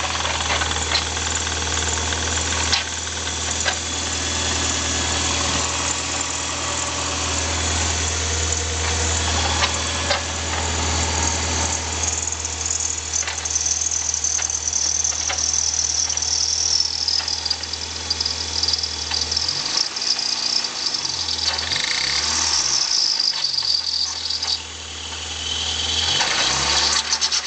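1991 Toyota MR2 Turbo's 3S-GTE four-cylinder running with a metal-on-metal grinding and scraping and a high squeal that slides down in pitch partway through. The owner takes it for the CT26 turbo's compressor wheel scraping its housing, the shaft having some play. A clicking rattle from an exhaust leak runs underneath.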